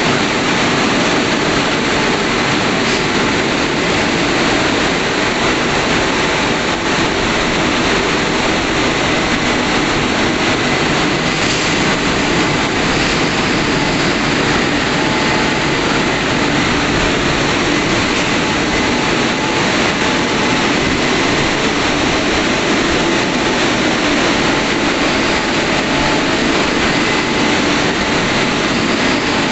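WashTec SoftCare 2 Pro rollover car wash drying: the gantry's blowers run as a steady, loud rush of air while the gantry travels along the car.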